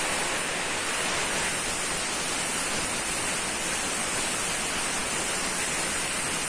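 Compressed-air blow gun hissing steadily as it blows water off a freshly vaporblasted aluminium engine casing to dry it.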